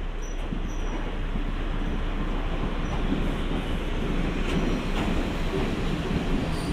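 Kominato Railway KiHa 200 series two-car diesel railcar running slowly into the station alongside the platform. Its engine and wheels make a steady rumble that grows gradually louder as it draws in.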